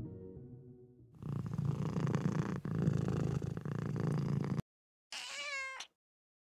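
A cat purring steadily for about three seconds, stopping abruptly. After a brief pause comes one short pitched call with a wavering pitch.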